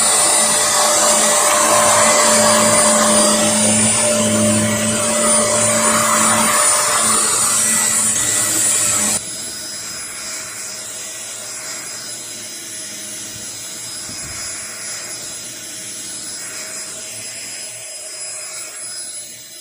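Shark upright vacuum cleaner running steadily. About nine seconds in, the sound drops abruptly to a quieter steady hum.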